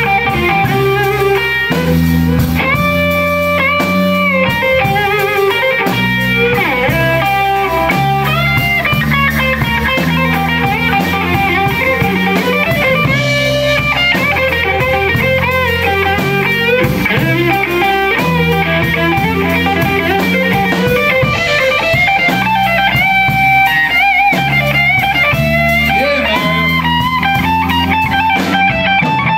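Live blues band playing: a lead solo on a Stratocaster-style electric guitar with bent notes, over drums and bass.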